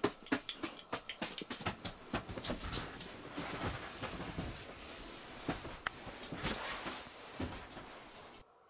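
A dog growling low under close rustling of bedding and a handheld camera, with irregular clicks and scuffs. The sound cuts off abruptly near the end.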